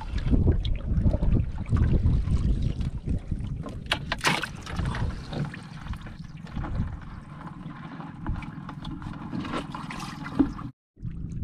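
Water splashing and trickling in a plastic bucket holding live blue crabs, with a few sharp splashes. A low wind rumble on the microphone dies down after about three seconds.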